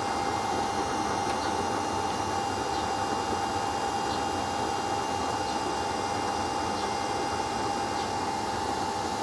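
Homemade used-oil double-burner stove running: a steady rush from its two 12-volt blower fans and the forced-air flame, with one steady mid-pitched hum over it.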